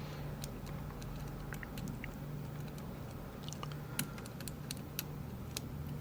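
Small, irregular clicks and ticks of a lock pick working the pins of a Rav Bariach LocXis pin-in-pin euro cylinder under tension, the sharpest about four seconds in, over a steady low hum.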